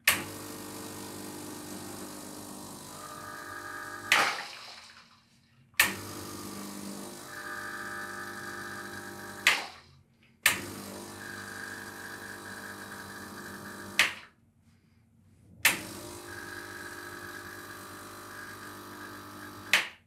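Gaggia Classic Pro's vibratory pump running in four short shots against a blind basket, each three to four seconds long. In each shot a higher strained note comes in as pressure builds. Each shot starts and stops with a sharp burst, the stop being the three-way solenoid valve releasing pressure into the drip tray.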